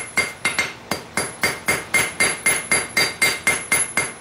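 Hand hammer striking a hot railroad-spike fork tine on an anvil, drawing the tine out. About four blows a second with a brief pause about a second in, each blow leaving a bright metallic anvil ring.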